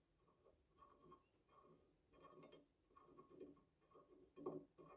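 Faint, repeated scrapes of a steel bolt's threads turning into a threaded hole in the metal body of a hand press, screwed in by hand, about two a second, with the loudest scrape near the end.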